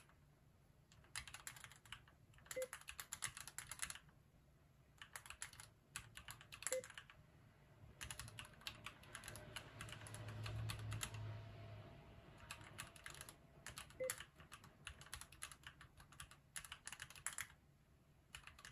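Keychron Q2 aluminium-cased mechanical keyboard being typed on fast, in quick runs of keystrokes a second or two long with short pauses between phrases.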